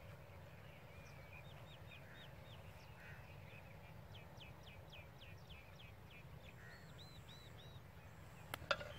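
Faint birdsong: runs of short whistled notes, each falling in pitch, about three or four a second, over a low steady rumble of wind. A couple of sharp knocks come near the end.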